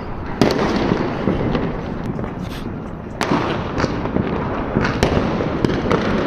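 Diwali firecrackers going off: sharp bangs about half a second in and again around three seconds, with a dense crackling din and scattered cracks between.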